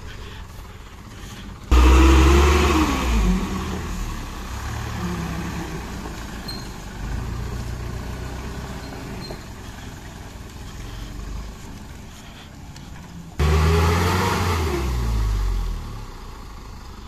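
Mitsubishi diesel dump truck's engine labouring through deep mud, revs rising and falling as the wheels fight the ruts. It gets abruptly much louder twice, about two seconds in and again near the end, each time with the engine pitch falling back.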